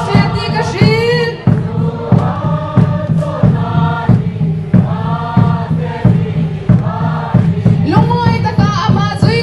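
A group of voices singing together over instrumental accompaniment with a steady beat.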